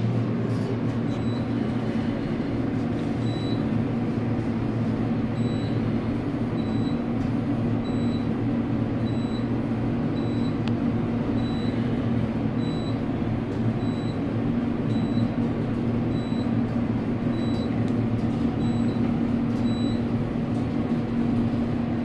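High-rise passenger elevator car travelling upward, heard from inside the cab: a steady hum and rumble of the ride, with faint short high beeps about once a second.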